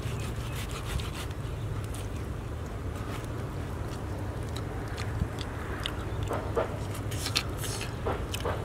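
Eating sounds: scattered mouth clicks and smacks, several stronger ones near the end, over a steady low rumble.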